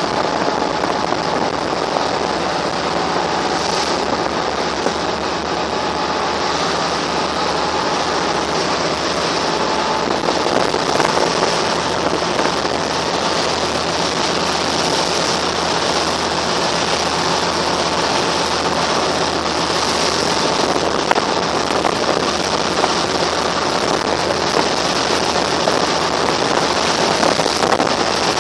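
Pilot boat underway at speed, heard from on board: a steady, loud rush of water and spray off the hull over the launch's engine, growing a little louder near the end as it closes on the ship's side.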